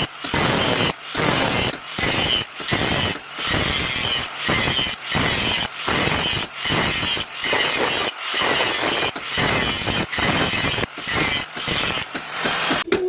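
A hand tool rasping back and forth on the leaf-spring steel of a cleaver blank: steady strokes, about one every three-quarters of a second.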